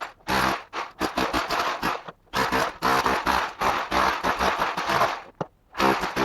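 Power tool working into the wall to make the chimney hole, running in repeated bursts of half a second to three seconds with short stops between them.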